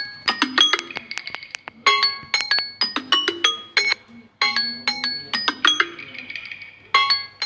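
Ringtone on a Samsung Galaxy A52 5G playing: a short melody of bright, bell-like notes that repeats about every two and a half seconds.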